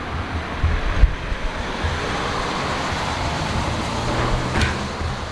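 Steady road traffic noise from a busy main street, with a low rumble underneath and cars passing.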